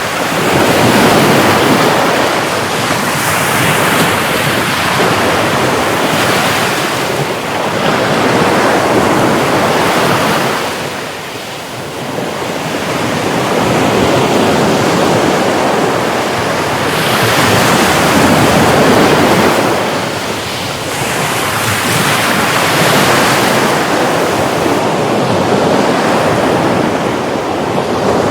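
Sea waves breaking and washing ashore: a continuous rush of surf that swells and eases every few seconds, with brief lulls between sets.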